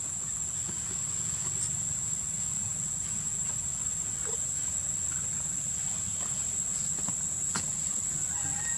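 A steady high-pitched insect drone over a low rumble, with scattered faint clicks and a faint short call near the end.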